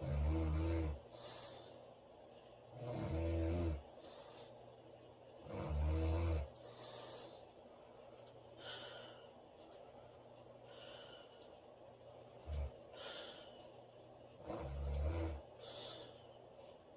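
A woman snoring loudly: low, buzzing snores about every three seconds, each followed by a softer airy breath. The snores stop for several seconds in the middle, leaving only soft breathing, and one more comes near the end.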